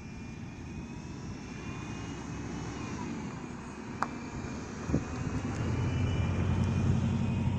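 Hi-rail SUV running along the rails, its engine and rail wheels growing louder as it comes close and passes, with a low steady hum at its loudest near the end. Two short knocks come about four and five seconds in.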